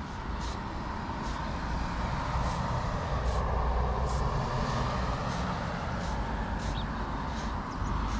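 Short hisses of an aerosol spray paint can, about a dozen quick bursts spaced half a second to a second apart, each one spraying a small black dot. Under them runs a steady low rumble of road traffic.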